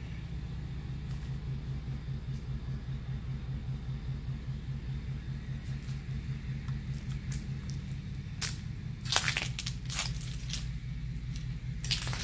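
Dry leaves crunching and rustling in a few sharp bursts, the loudest about nine seconds in, over a steady low hum with a fast, even pulse.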